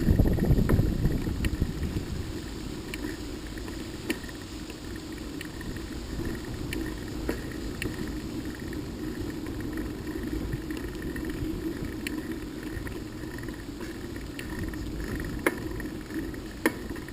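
Motorcycle on the move: a steady low engine drone mixed with wind rumble on the microphone, with scattered light clicks.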